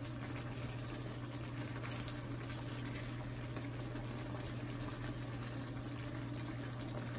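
Chicken roast gravy simmering and bubbling in a frying pan as it is stirred with a wooden spatula, over a steady low hum.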